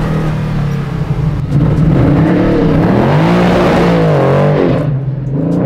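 Big-block 540-cubic-inch V8 in a Jaguar XJ6 accelerating hard: a steady low rumble swells about one and a half seconds in, and the engine note climbs and drops a few times before settling back to a steady rumble near the end.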